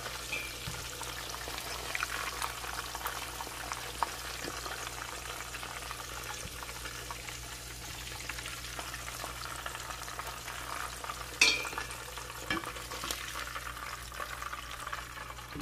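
Lamb chops frying in hot oil in a pot: a steady sizzle and crackle as the meat is seared to a crust. About eleven seconds in there is one sharp clink.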